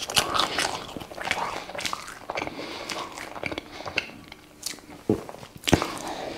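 Close-up mouth sounds of a man chewing a mouthful of hamburger: irregular wet smacks and clicks, with a sharper louder bite into the burger about five to six seconds in.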